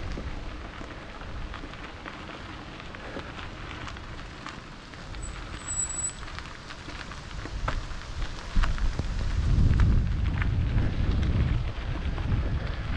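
Mountain bike tyres crunching and crackling over loose gravel while riding, with wind buffeting the microphone. The wind rumble grows heavier from about eight and a half seconds in.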